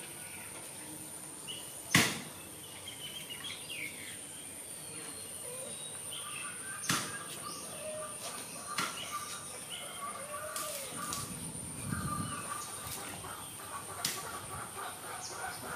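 Outdoor yard ambience: a steady high-pitched insect drone with scattered bird chirps. A few sharp clicks, the loudest about two seconds in.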